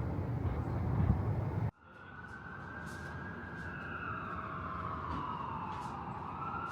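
A low rumble of wind or traffic noise that cuts off abruptly, followed by a siren wailing, its single tone falling slowly and then rising again.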